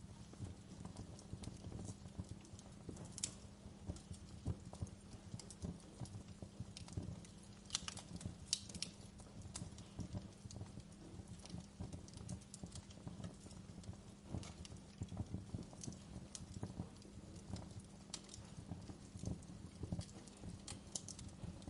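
Wood fire burning in a fireplace, crackling with irregular pops and snaps over a steady low rumble. A few sharper pops stand out about a third of the way in.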